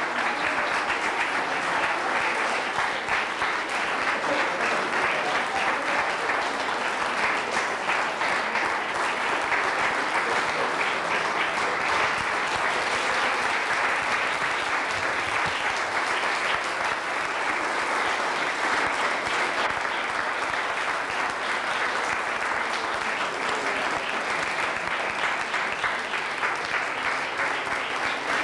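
Audience applauding, many hands clapping steadily and without a break.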